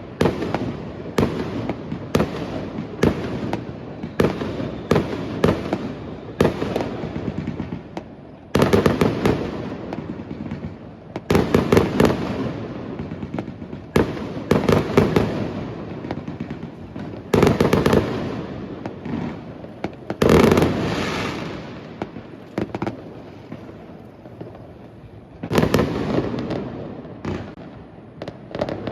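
Fireworks going off: a steady run of sharp bangs, roughly two a second, for the first eight seconds or so, then louder bursts every two to three seconds, each followed by crackling.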